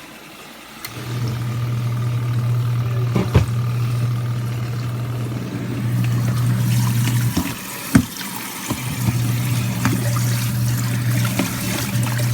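Portable mini washer's electric motor running with a steady hum over water sloshing and trickling in the tub. The hum starts about a second in, stops for a moment around eight seconds with a sharp knock, then starts again.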